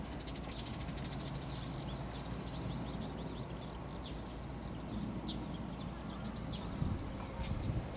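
Small birds chirping, with a quick trill about a second in, over a steady low outdoor rumble; a few louder low bumps come near the end.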